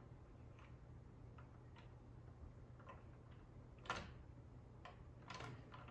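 Faint, sparse clicks of plastic Lego pieces being handled and pushed while the candy-cane lever mechanism is adjusted, with a sharper click about four seconds in.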